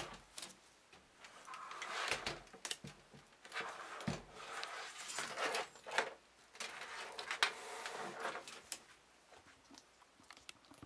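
A computer case being handled and turned back upright: several clusters of knocks, scrapes and rattles, dying down to a few light ticks near the end.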